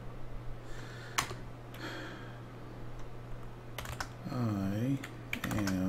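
Computer keyboard keystrokes and clicks, with one sharp key press about a second in, over a steady low hum.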